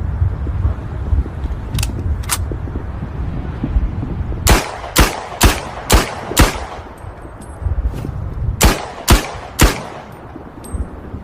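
Luger semi-automatic pistol firing: two shots, then a rapid string of five about half a second apart, then a fainter shot followed by three more at the same pace, over a steady low rumble.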